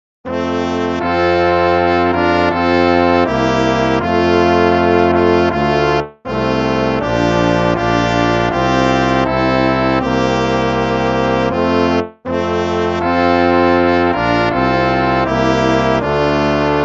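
Instrumental hymn music in sustained, slow-moving chords, starting just after a moment of silence, with brief breaks between phrases roughly every six seconds.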